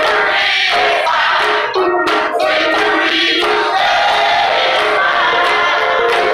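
Live gospel music: a choir singing, with a woman's lead voice on a microphone.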